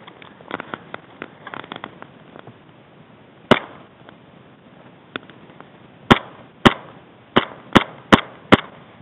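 Airsoft pistol firing: one sharp shot about three and a half seconds in, then six more in quick succession, roughly two a second, near the end.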